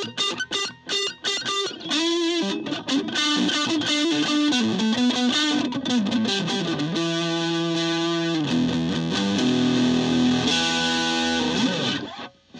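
Electric guitar played through a Fender Frontman PR-241 15-watt solid-state combo amp, now producing sound again after its no-output repair. Quick choppy picked notes open the passage, followed by held notes and chords, which stop abruptly near the end.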